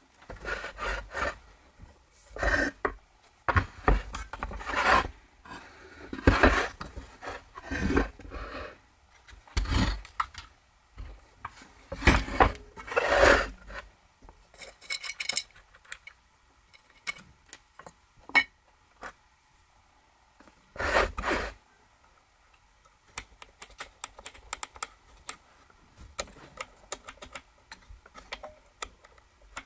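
Hands handling and taking apart a 1964 Homelite XL-100 gas-engine circular saw on a wooden bench. There are irregular clunks, rubbing and scraping of the metal saw body being moved, then quieter light clicks and ticks of small parts as the air filter cover comes off.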